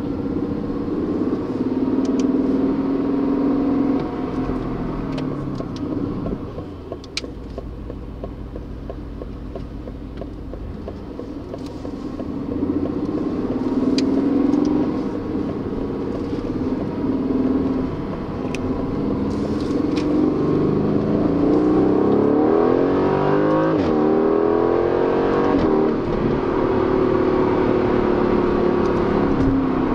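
Aston Martin Vantage's twin-turbo V8 engine and exhaust running and accelerating, the pitch rising several times as it pulls up through the revs, then holding steady. A few short, sharp cracks come through in between.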